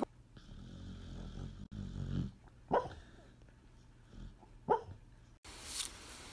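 A dog growling low for about two seconds, then giving two short yips about two seconds apart.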